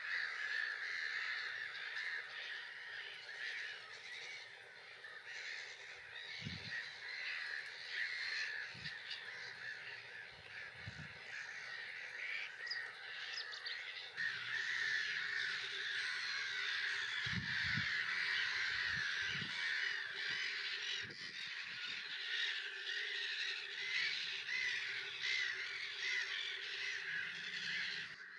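Gull colony calling: many harsh, overlapping calls in a continuous chorus, with a few low thumps.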